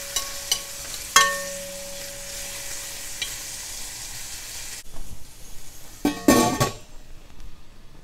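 Diced carrots sizzling in oil in a stainless steel Cutco wok while a metal spoon stirs and scrapes them, with a few sharp clinks, one leaving the wok ringing about a second in. About six seconds in the steel lid is set on with a clatter, and the sizzle turns muffled under it.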